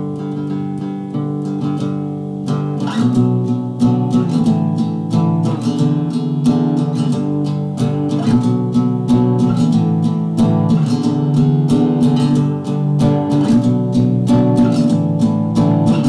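Background music led by guitar, with plucked and strummed chords over a steady beat, growing fuller and louder about two and a half seconds in.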